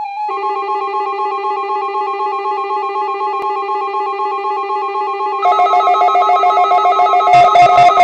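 Background music: a fast repeating arpeggio over a held low note. More layers join about five and a half seconds in, and a drum beat comes in near the end, building louder.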